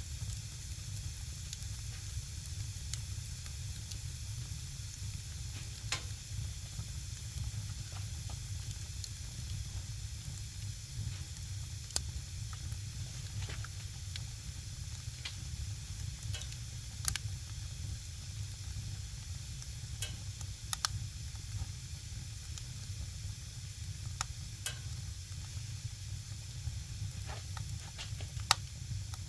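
Firewood burning and crackling: a steady hiss with a low rumble beneath, broken by sharp pops and snaps at irregular intervals, a dozen or so standing out clearly.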